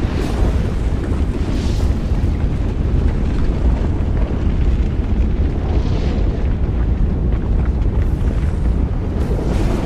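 Volcanic lava-planet sound-design ambience: a steady, loud, deep rumble of lava and eruptions, with brief hissing swells about two seconds in and again around six seconds.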